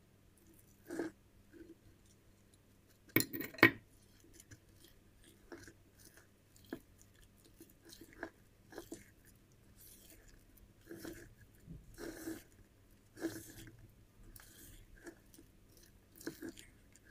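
Thick carrot cake batter being folded together with grated carrot in a ceramic bowl by hand: irregular wet squelching strokes and scrapes of the utensil against the bowl, loudest about three seconds in.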